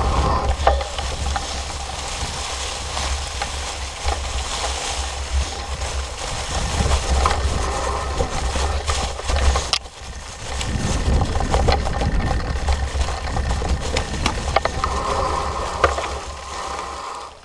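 Fat bike tyres rolling over dry fallen leaves and twigs on a forest trail: a continuous crackling rush with scattered sharp clicks. A steady low rumble of wind and vibration on the bike-mounted camera runs underneath, and the sound drops briefly about ten seconds in.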